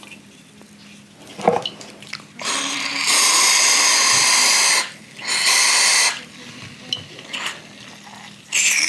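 Aerosol can of silicone spray lubricant hissing in two bursts, a longer one about two and a half seconds in and a shorter one about five seconds in, sprayed into the heater blower fan motor's bearing to cure its squeal. A few short knocks of handling before and after.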